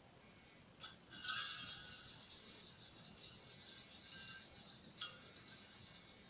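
Small bells jingling as Christmas tree decorations are handled. A sharp click a little under a second in, then a few seconds of bright high jingling, and another click at about five seconds.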